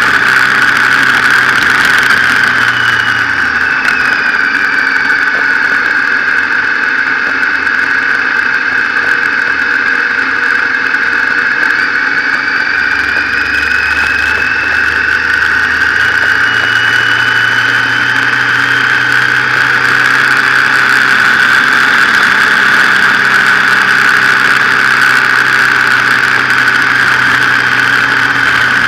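Motorcycle engine running at road speed, heard from a camera on the bike, with a steady high hiss over it. The engine's low pitch drops a few seconds in and rises again about halfway through.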